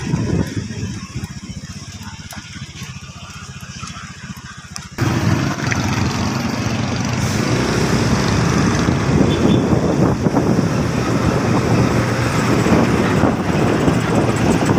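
Ride noise from a moving motor vehicle: a low engine rumble and wind rushing over the microphone. It turns suddenly louder and fuller about five seconds in.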